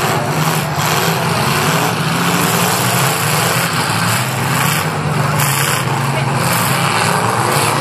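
Several demolition derby cars' engines running loudly and steadily in the arena, with crowd chatter underneath.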